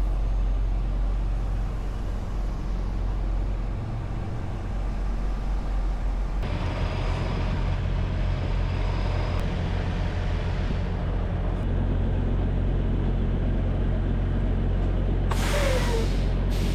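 Semi truck's diesel engine running with a steady low rumble that gets fuller about six seconds in. Near the end comes a loud hiss of air, typical of the air brakes being set as the truck is parked.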